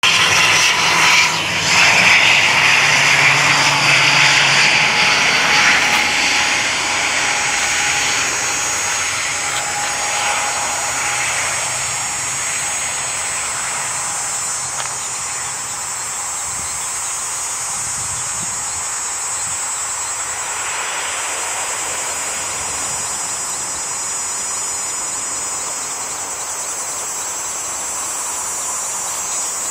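ATR 72-600 turboprop airliner landing, its twin turboprop engines and propellers loudest in the first few seconds, then fading away as it rolls out down the runway. A steady high insect buzz runs underneath throughout.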